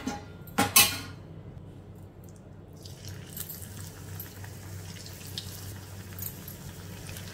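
Two sharp knocks in the first second, then from about three seconds in battered bread slices sizzling and crackling as they fry in hot oil in a cast-iron kadai.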